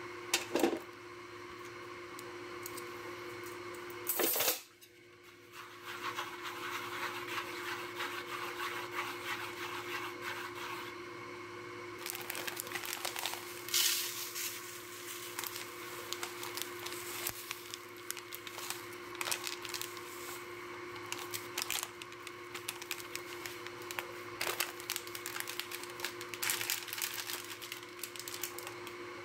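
Seasoning pouches crinkling as they are cut open with a knife and shaken out, and dry breading mix pattering onto a foam plate: a dense crackle of small clicks with a few sharper clicks and rustles. A steady faint hum runs underneath.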